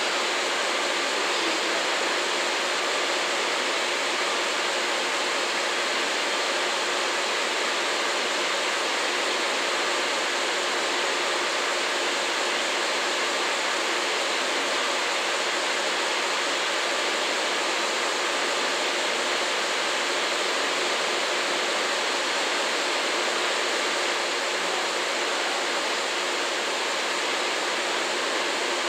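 Steady, even rushing noise with a few faint constant tones underneath, unchanging throughout, with no distinct clicks, horn or wheel sounds.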